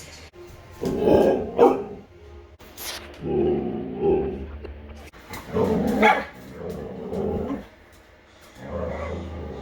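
Husky 'talking': about five drawn-out, wavering vocal calls of roughly a second each, with short gaps between them.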